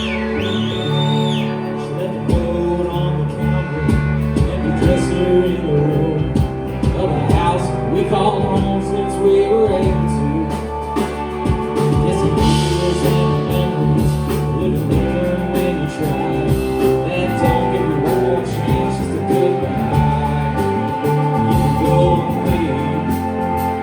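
Live band playing a song, with guitars, drums and a singer's voice.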